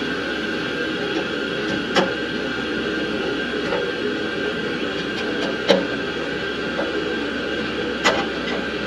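Three sharp clicks and knocks of hands handling metal parts and fittings under a wall-hung boiler, spaced a few seconds apart, over a steady background hum.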